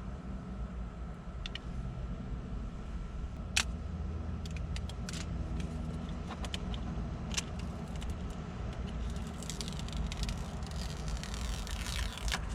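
Scattered light plastic clicks and taps as a matte screen protector is handled and set onto a car's touchscreen, with a denser crinkling stretch near the end, over a steady low cabin hum.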